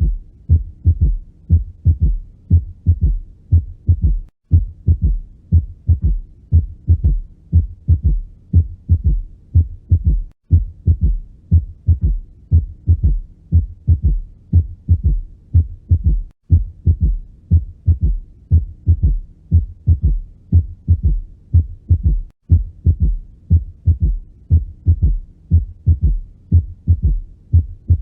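Heart sounds as heard through a stethoscope, beating steadily with a third heart sound (S3) in each cycle. There is a brief break about every six seconds, where the recording loops.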